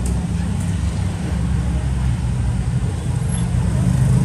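Steady low rumble of road traffic with a fine rapid pulsing, as of motor engines running.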